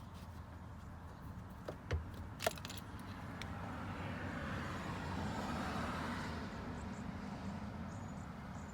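A few light clicks, then a vehicle's noise that swells and fades over several seconds, over a steady low rumble.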